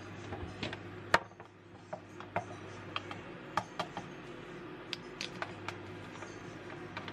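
Scattered light clicks and taps of a clear plastic storage container and plastic bags being handled on a kitchen countertop, with one sharper knock about a second in.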